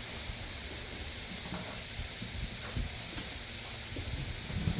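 A steady, even hiss throughout, with a few faint knocks.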